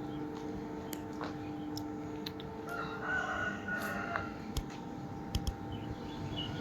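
A rooster crowing once, about three seconds in, over a steady hum and a few scattered clicks.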